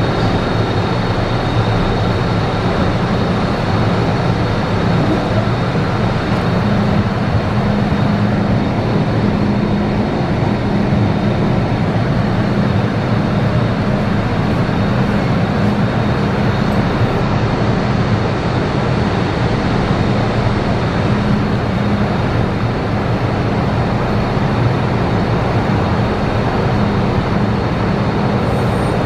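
MTR M-train standing at a platform with its doors open: a steady hum and rush from the train's running equipment, with a thin high whine held throughout.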